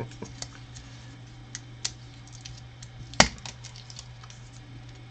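Small plastic Lego pieces clicking and clattering as they are handled and sorted from a pile, with one sharper click about three seconds in.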